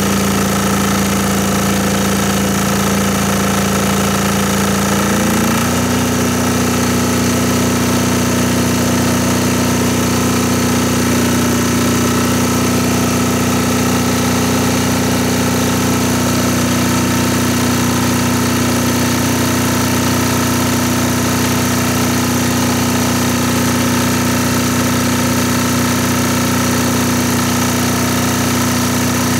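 Air-cooled diesel generator engine running steadily, warming up without load. About five seconds in its pitch steps up a notch as the engine speeds up, then holds at the new speed.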